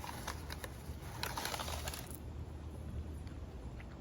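A dove cooing in the background, with rustling and clicking that is busiest in the first two seconds and dies down after.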